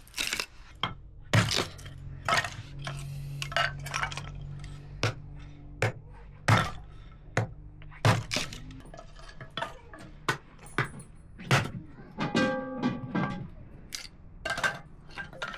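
Dishes, pots and utensils being handled: a run of irregular sharp clinks and knocks, one every half second to a second.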